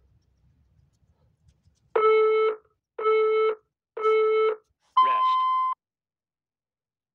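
Interval workout timer counting down: three short, identical beeps a second apart, then a longer, higher-pitched beep, the signal that the next work interval starts.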